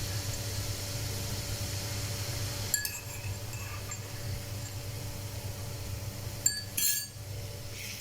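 Onions sizzling in hot oil in a pan, the hiss easing after about three seconds, as a utensil clinks against a dish twice, once about three seconds in and again near the end, the second clink followed by a brief clatter: crushed garlic being added to the frying onions.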